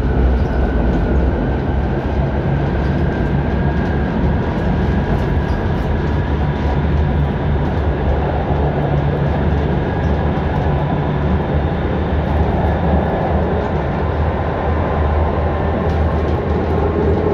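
1965 ASEA M28 tram under way, heard from inside the car: a steady running rumble of wheels on rails with a faint steady whine above it.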